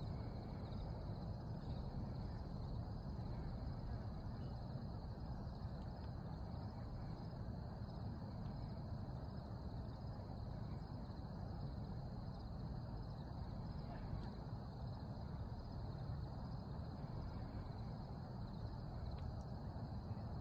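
Insects, crickets or the like, chirping steadily in a constant high-pitched drone, over a steady low rumble.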